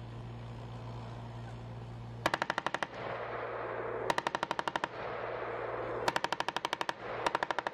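Turret-mounted M240B 7.62 mm machine gun firing four short, rapid bursts, each under a second long and trailing off in echo. A steady low hum sits underneath between the bursts.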